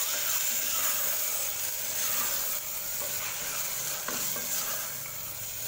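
Green peas in a thick tomato masala sizzling in a pressure cooker while a spatula stirs them around the pot.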